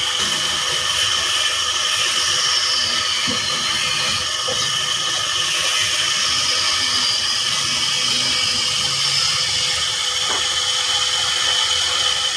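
A handheld power tool running steadily throughout, with a hissing high whine that wavers slightly in pitch.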